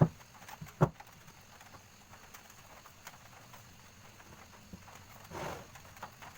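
Two sharp knocks a little under a second apart, then light scattered taps and a short swish near the end, with no saw motor running.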